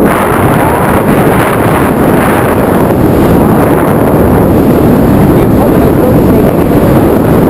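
Loud, steady wind rushing over the camera's microphone during a tandem parachute descent under an open canopy.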